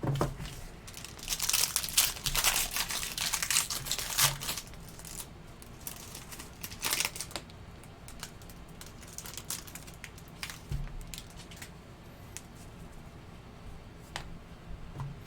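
Trading-card pack wrapper being torn open and crinkled, loudest in the first few seconds, with another short crinkle about seven seconds in. After that come scattered light clicks of cards being handled.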